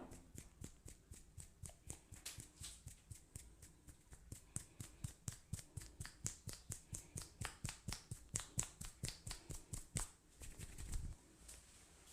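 Rapid, even hand slaps on the body during a head massage, about four a second. They are followed by a short, louder scuffing sound about ten seconds in.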